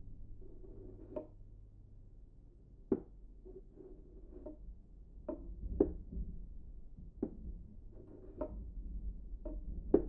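Sound-design knocks and taps for a cardboard box: about a dozen short knocks at uneven intervals, the loudest around the middle, over a low steady rumble.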